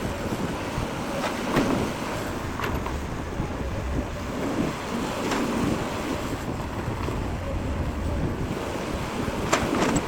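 Heavy diesel construction machinery running with a steady low rumble, with wind on the microphone and a handful of short knocks or clanks.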